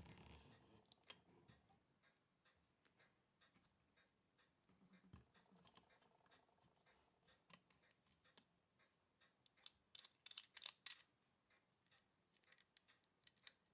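Faint, irregular small clicks and taps of watchmaker's tools and watch parts being handled, with a brief flurry of sharper clicks about ten seconds in.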